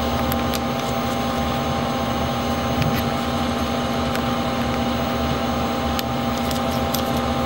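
Steady hum of shop machinery, an even drone with a steady pitch, with a few light metallic clicks as a metal tool-post mount is handled and set onto the lathe's compound rest.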